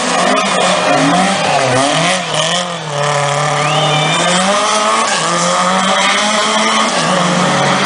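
Rally car engine revving hard at close range, its pitch repeatedly climbing and dropping with gear changes and throttle lifts, with a brief lift off the throttle about three seconds in before it pulls up again.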